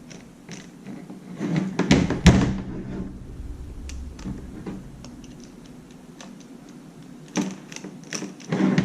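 Scattered clicks and knocks of a plastic hair dryer handle being worked with a screwdriver to remove its screws, with a cluster of louder knocks about two seconds in and more near the end.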